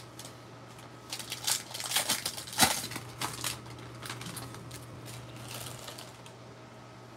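Handling of Panini Prizm basketball trading cards and their foil pack wrapper: a quick run of clicks, flicks and crinkles from about one to three and a half seconds in, the sharpest one about two and a half seconds in, then softer handling. A faint steady hum runs underneath.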